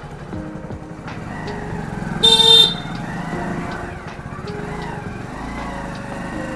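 Motorcycle engine running while riding, with one short, loud horn beep about two seconds in.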